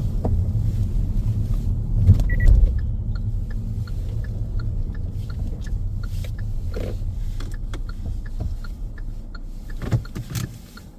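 Car interior: low road and engine rumble fading as the car slows. From about two seconds in, a turn-signal indicator ticks steadily, about two to three clicks a second.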